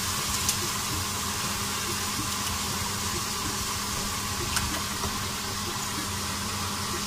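Spiced onion masala frying and sizzling in hot oil in a pressure cooker while yogurt is poured in, a steady hiss over a low hum, with a few light clicks.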